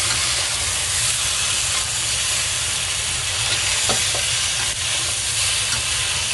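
Chicken pieces sizzling in a hot cast-iron wok while a spatula stirs and tosses them, with the spatula scraping the wok now and then.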